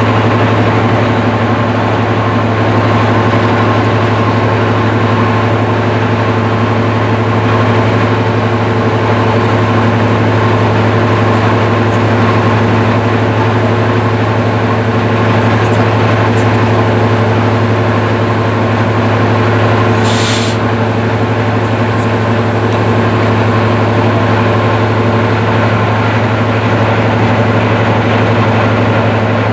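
Class 55 Deltic diesel locomotive standing with its Napier Deltic two-stroke engines running at idle, a loud, steady, deep hum. A short hiss about two-thirds of the way through.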